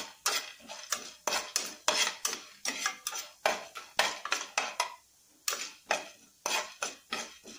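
Metal spatula scraping and clicking against a nonstick frying pan as lentils and fenugreek seeds are stirred in oil, in quick repeated strokes with a short pause about five seconds in.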